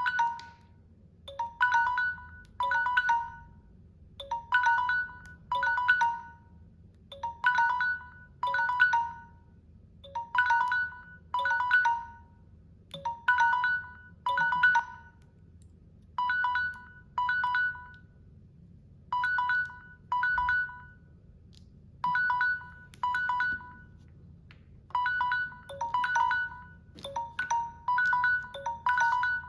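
Samsung device alarm tone: short electronic two-note chimes that come in pairs, a pair about every three seconds, repeating throughout.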